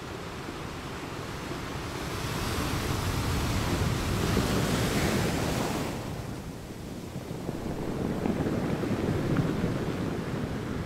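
Small waves washing in on a sandy beach: a wash of surf that swells over a few seconds, falls away about six seconds in, then builds again. Wind rumbles on the microphone underneath.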